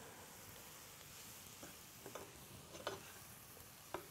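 Sliced mushrooms frying faintly in butter in a pan, stirred with a wooden spoon that clicks and scrapes against the pan a few times.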